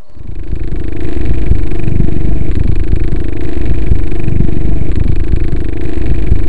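A loud, low rumble that swells in over about a second, holds steady, then cuts off abruptly.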